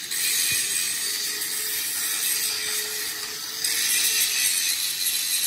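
Steady hissing metalworking noise, which gets louder about two-thirds of the way in.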